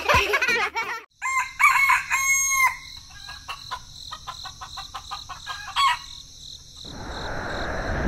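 A rooster crows about a second and a half in, followed by a run of short clucks from hens. Near the end a steady hiss rises, as the sound of rain begins.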